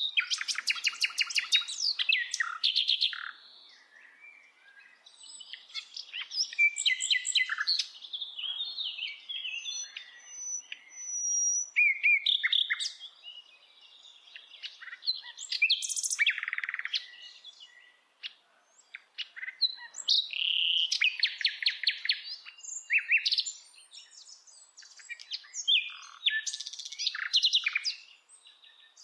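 A bird singing a long, varied song: phrases of rapid trills, chirps and whistled notes follow one another with short pauses between them.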